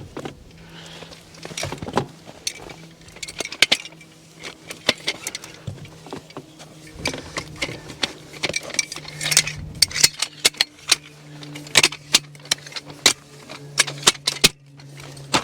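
Repeated metal clinks, clanks and rattles from stovepipe flue sections being handled and fitted onto a small wood stove.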